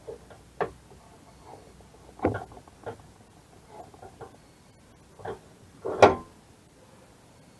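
Acrylic pen parts being pushed and pressed together by hand: a series of separate small knocks and clicks, five or six in all, the loudest about six seconds in.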